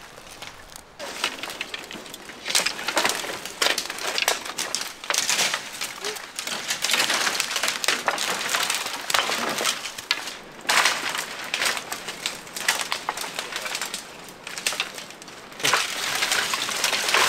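Dry, dead mimosa branches and twigs cracking and snapping underfoot as people trample and push through a thicket of them. An irregular run of crackles starts about a second in.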